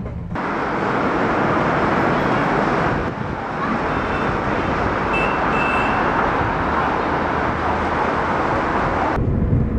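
City street traffic noise: a steady rush of passing cars and other road vehicles, with a short dip about three seconds in.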